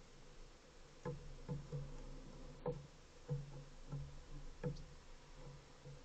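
Faint, irregular sharp taps, about nine in six seconds, from a rock pigeon pecking seed off a wooden deck railing.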